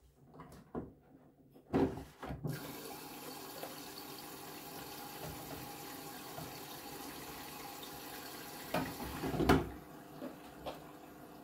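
Whirlpool FreshCare+ washing machine taking in water early in the wash: a few knocks, then water rushes in suddenly and runs steadily. Near the end a couple of knocks come and the rush drops to a quieter flow.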